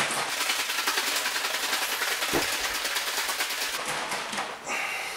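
Plastic bottle of dye and water being shaken hard, the liquid sloshing inside in a rapid, even rhythm; the shaking stops about four and a half seconds in.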